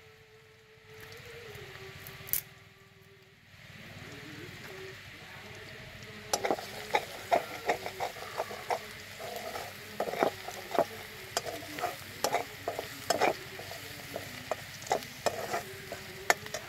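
Onions and green chillies sizzling in oil in a metal kadai, then, from about six seconds in, a metal spatula stirring them with many quick scrapes and knocks against the pan.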